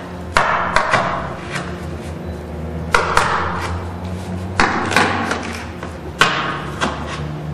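Cardboard being handled and set down on a tabletop: four sharp knocks, each a quick pair followed by a short rustling decay, spaced a second and a half to two seconds apart over a steady low hum.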